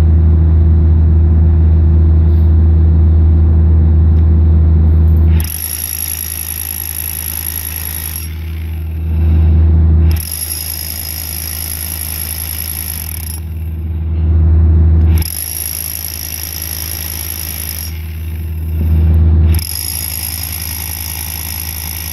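Corded rotary hammer drill boring bolt holes into the asphalt through a timber template, run in four bursts of about three seconds each with a high motor whine and hammering. A loud steady low hum fills the first five seconds and swells again in the short pauses between bursts.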